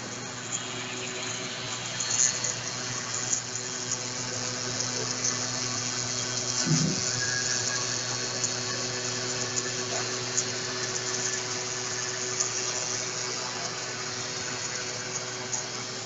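CNC router running and cutting a foam pattern: a steady hiss over an even low hum, with scattered faint ticks and a brief low bump about seven seconds in.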